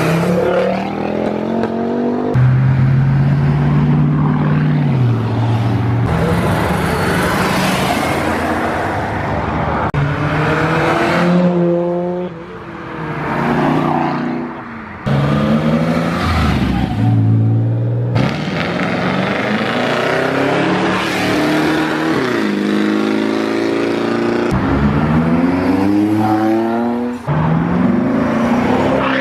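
A series of performance cars accelerating hard away one after another, each engine note climbing steeply through the revs and dropping back at the upshifts. The sound switches abruptly from one car to the next every few seconds.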